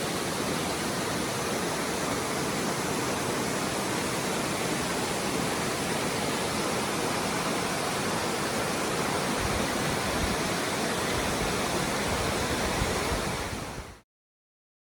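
Laughing Whitefish Falls, a large waterfall, giving a steady, dense rush of falling water. Near the end it fades out quickly and stops dead.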